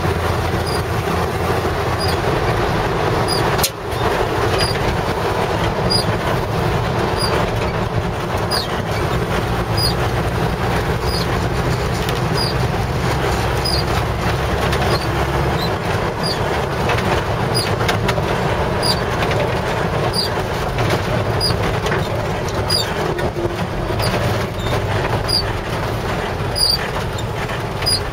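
Steady engine and tyre noise heard from inside the cab of a 1955 Chevrolet 3100 half-ton pickup driving on a wet road, with a brief click about four seconds in.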